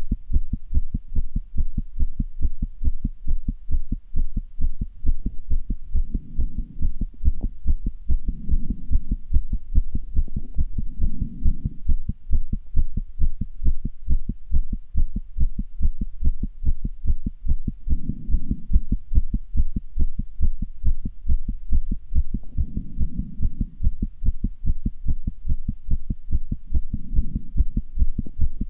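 A person's heart beating fast and regularly, a steady train of low thumps made as the heart valves open and close. A few soft low swells rise under the beats now and then.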